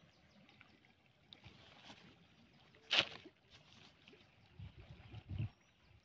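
Faint handling sounds of plastic litter and a plastic garbage bag: one short sharp rustle about three seconds in, then a few dull knocks near the end.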